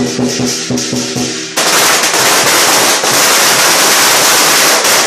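Lion dance percussion beats out a rhythm. About a second and a half in, a string of firecrackers goes off in a dense, loud crackle that drowns the music for about three seconds.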